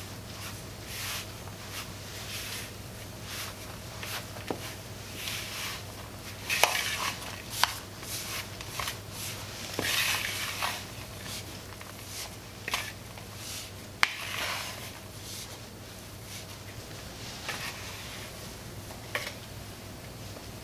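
Silicone spatula scraping and pressing crumbly cocoa dough against a glass mixing bowl, in repeated strokes about once a second, with a few sharp clicks as it knocks the glass. A low steady hum sits underneath.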